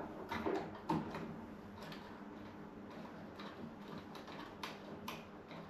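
Faint, irregular small clicks and ticks of a flathead screwdriver undoing the small screws on a shower mixer valve, metal on metal and plastic.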